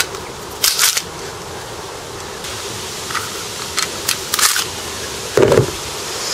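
Clicks and scrapes of a gas blowback airsoft M&P9 pistol being field-stripped, its slide sliding forward off the frame. Two short bursts of sharp clicking come about one and four seconds in, and a duller knock comes near the end.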